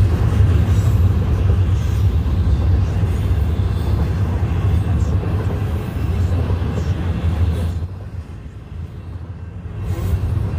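Double-stack intermodal freight train passing over a grade crossing: a steady low rumble of container well cars rolling by, easing briefly about eight seconds in before building again.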